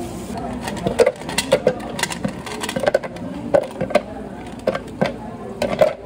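Irregular knocks and clicks of hard objects being handled, several a second, some with a brief ring.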